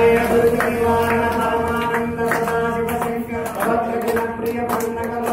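Men singing a Telugu devotional aarti song, led by one voice through a microphone, holding long notes over sharp beats that keep time about three times a second.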